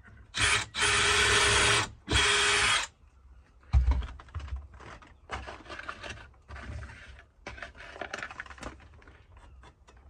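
Cordless drill driver driving a screw into a timber batten in three short runs, its motor whine steady in each. Then a thump, followed by scattered clicks and rustles of screws being picked from a box.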